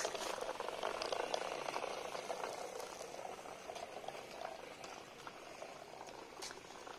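Homemade cardboard RC tractor driving over rough concrete: its small electric gear motor and wheels give a dense crackling rattle that gradually fades as it moves away.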